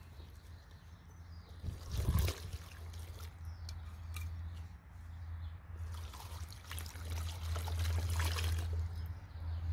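Water poured from a jug into a plastic tub onto a compressed coconut coir brick, splashing and trickling: a short pour ending about two seconds in, then a longer pour from about six seconds in.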